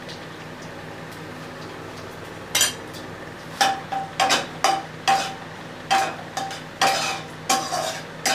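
Metal spatula stirring whole spices in hot oil in a kadhai while tempering a tadka. After a quieter first couple of seconds, it scrapes and knocks against the pan about twice a second, each stroke with a short metallic ring.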